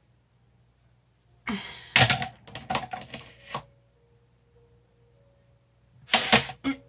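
A makeup brush rubbing over the skin of the face right next to the microphone: scratchy, clicking strokes in two bursts, from about a second and a half in for two seconds, and again briefly near the end.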